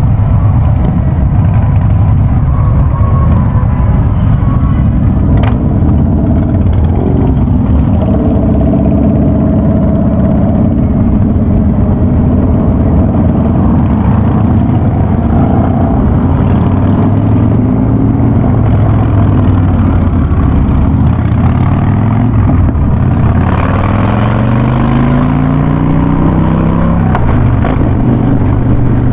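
Harley-Davidson Ultra Classic's V-twin running loud through a Vance & Hines Big Radius exhaust while riding. It holds a steady cruising note for most of the time, then the pitch climbs as it accelerates about two-thirds of the way in.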